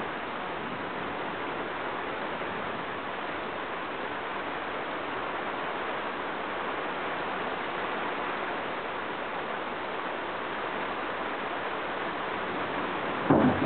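Steady hiss of rain falling, with a single brief thump near the end.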